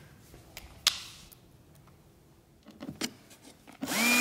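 A few light clicks and knocks of handling, then near the end a cordless drill-driver with a screw bit spins up, its motor whine rising quickly and then holding steady as it drives a small screw into an aluminium profile.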